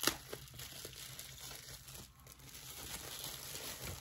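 Crinkly white wrapping being crumpled and pulled apart by hand to unwrap a small glass oil bottle, giving a run of irregular crackles and rustles with a sharper crackle right at the start.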